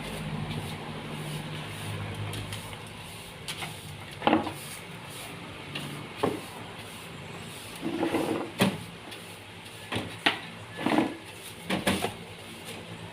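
Wooden knocks and clunks at irregular intervals, about a dozen in all, some in quick pairs, from pieces of a wooden shelf and divider being handled and set in place during DIY carpentry. A low steady hum runs under the first few seconds.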